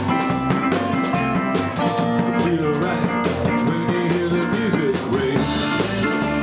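Small rock band playing: a drum kit keeps a steady beat under electric guitar and bass guitar.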